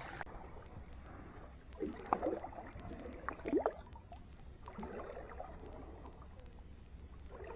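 Shallow water sloshing and lapping as a hand lowers a small redear sunfish into it and lets it swim off, with a few small splashy plops about two and three and a half seconds in.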